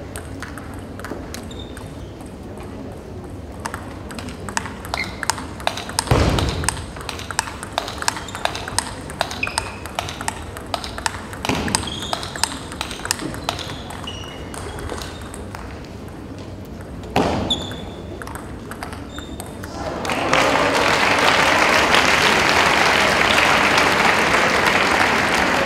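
Plastic table tennis ball ticking sharply and repeatedly on the table and paddles, with a few heavier thuds. About three-quarters of the way in, a loud, steady wash of crowd clapping takes over.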